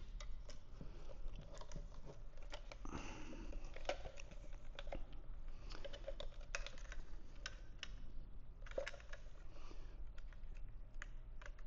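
Irregular light clicks, taps and rustles of hard plastic being handled: a plastic fuel pump top-hat and basket assembly being turned over while its wiring is routed into plastic clips.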